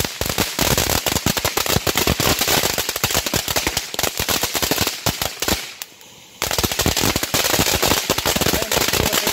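Ground firework fountain spraying crackling stars: a dense, rapid run of sharp pops and crackles. It stops for a moment about six seconds in, then starts again.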